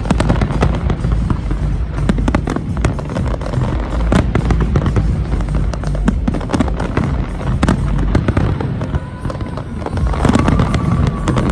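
Fireworks going off in rapid succession: a dense run of sharp bangs and crackles over a continuous low rumble.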